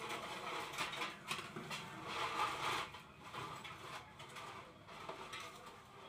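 A screwdriver turning a screw in the red plastic head of an electric immersion water heater to open it: irregular scraping and creaking of metal on plastic, with small clicks.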